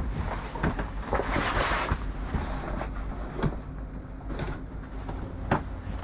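Wind on the microphone over a steady low rumble, with a rush of noise about a second in and scattered sharp knocks and clicks aboard a sailboat.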